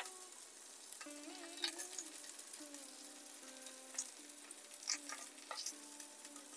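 A whole masala-marinated fish frying in mustard oil in a pan: a low, steady sizzle with scattered small pops and crackles.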